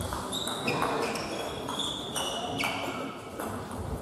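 Table tennis rally: the ball clicking sharply off bats and table, several hits roughly half a second apart, each with a short ringing tail.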